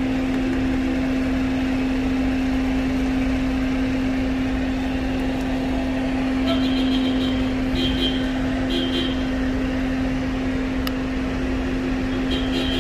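Steady mechanical hum with one constant low tone over a noisy background, with a few faint short high squeaks about halfway through and again near the end.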